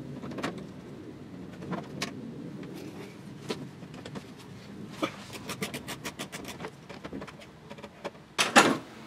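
Hand tools and fasteners working on the plastic under-engine skid plate: scattered clicks, a quick run of about nine even clicks a second a little past halfway, and a louder clatter of knocks near the end.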